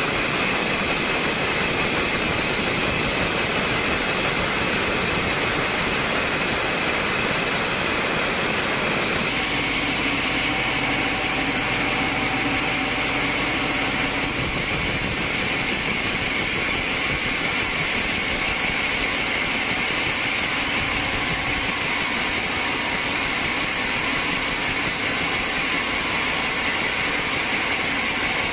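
Sawmill machinery running steadily with a high-pitched whine. The sound changes abruptly about nine seconds in, then runs on steadily.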